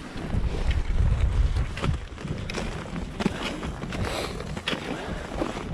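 Wind buffeting the microphone, strongest in the first two seconds, with hikers' footsteps on a trail as the group sets off walking.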